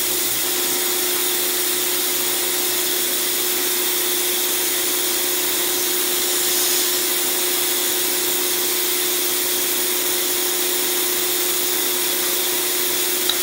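Milling machine running steadily with no cut being taken: an even hum with one steady tone over a hiss.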